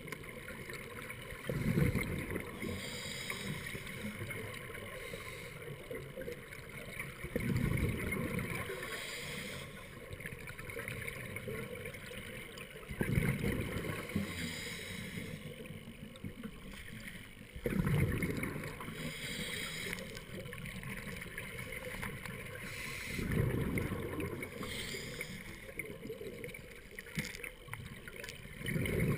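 Scuba diver breathing through a regulator underwater: a rush of exhaled bubbles about every five to six seconds, with a steady hiss between.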